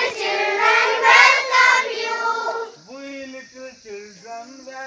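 A group of young children singing a rhyme together in chorus. It is loud for the first two and a half seconds, then softer.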